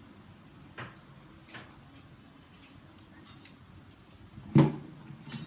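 Scattered light clicks and taps of plastic toy trucks being handled, with one sharp, loud knock about four and a half seconds in.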